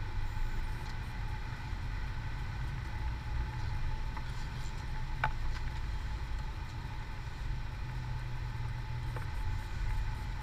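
Car in motion heard from inside the cabin: a steady low road and engine rumble, with a faint steady high tone above it and a single click about five seconds in.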